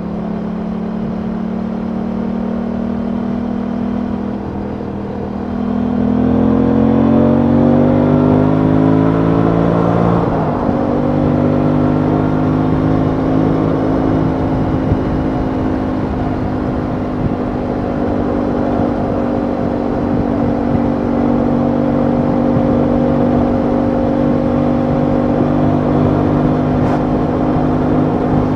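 Aprilia Tuono 660's parallel-twin engine heard from the saddle. It runs steadily, then from about five seconds in it accelerates with rising pitch. Around ten seconds in the pitch drops sharply with an upshift, and it runs steadily again, with wind rushing over the microphone throughout.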